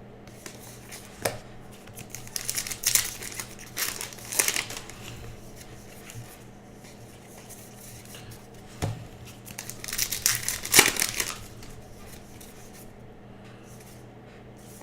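Baseball card pack wrapper crinkling and being torn open and crumpled, in two bouts of rustling, one about two seconds in and one near the middle.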